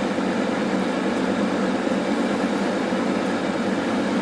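Monzana hot-air fryer running at 200 °C mid-cook: the steady, unchanging noise of its fan blowing hot air.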